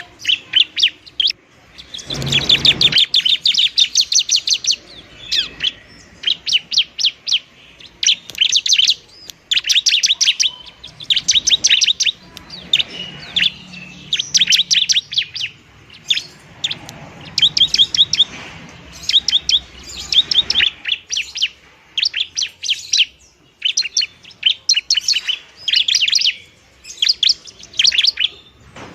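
Bar-winged prinia (ciblek) singing its combative 'tarung' song. It comes as rapid, high chattering trills in bursts of one to two seconds, one after another with short gaps.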